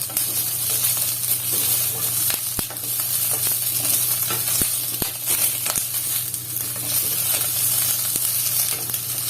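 Red chilli peppers frying in sesame oil in a pan: a steady sizzle with scattered sharp clicks and crackles.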